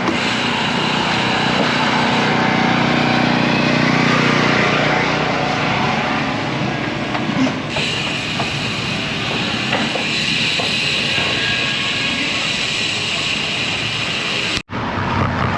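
Wind rushing over a GoPro's microphone on a moving road bike, mixed with steady tyre and road noise. The sound cuts out for an instant near the end.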